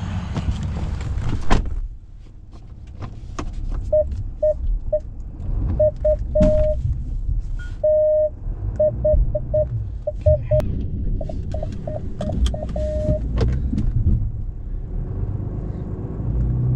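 A pickup truck door slams shut about a second and a half in. Then the Ram truck's parking-sensor chime beeps at one pitch, in quick short beeps mixed with longer held tones, over the low rumble of the running engine, which grows louder near the end.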